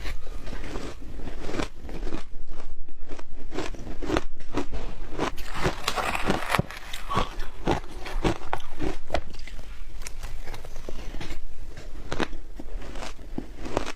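Close-up crunching and chewing of powdery shaved ice: repeated sharp bites and a dense crackling crunch of ice pieces being chewed, loudest around two to three seconds in and again near eight seconds.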